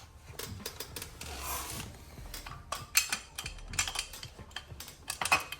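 Metal clicks and light clatter of a clutch throwout bearing being fitted onto the transmission's release fork and input-shaft sleeve, with a brief scrape about one and a half seconds in and quicker clicking in the last couple of seconds.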